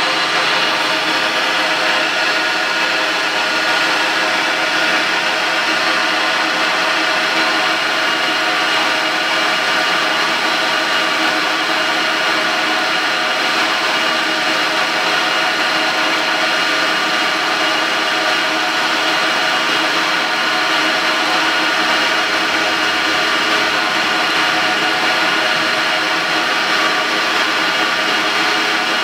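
Blanchard 18-36 vertical rotary surface grinder running under power: a steady mechanical hum with several fixed tones over a hiss, unchanging throughout.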